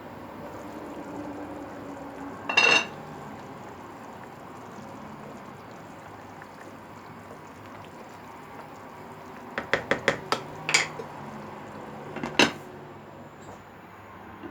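Dishes and cutlery clinking and knocking together: one clatter about two and a half seconds in, a quick run of clinks around ten seconds, and another sharp knock a couple of seconds later.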